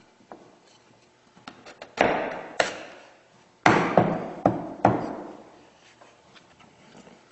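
A few light taps, then five sharp knocks on wood in two groups, each dying away with a short ringing tail.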